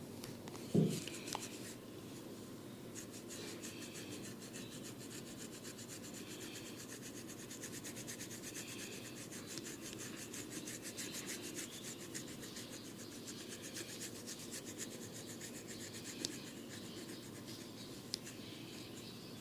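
Fast, even rubbing and scratching strokes on a head of hair and scalp during a barber's head massage, with a single dull thump about a second in.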